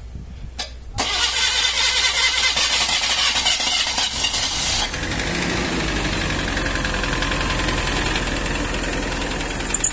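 Mitsubishi Pajero Mini's 659 cc four-cylinder engine being started: a click, then the engine catches about a second in and runs with a bright, busy sound, settling into a steady idle about five seconds in.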